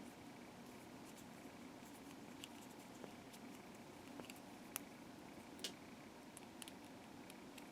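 Near silence with a scattering of faint small clicks and taps from handling tiny plastic kit parts and screws; two clicks about five seconds in stand out a little more.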